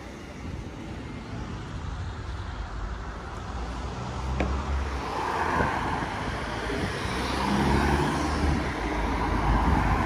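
Road traffic: cars driving past, with tyre and engine noise that builds up through the second half.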